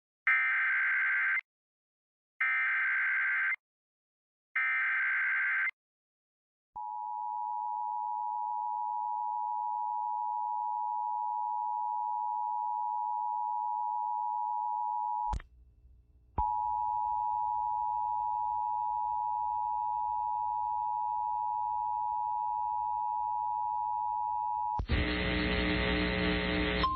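Emergency Alert System activation for a tornado warning. Three short bursts of digital SAME header data, each about a second long with a second's gap between them, are followed by the steady two-tone attention signal. The tone breaks off with a click and about a second's dropout halfway through, then resumes. Near the end a louder mix of noise and tones cuts in.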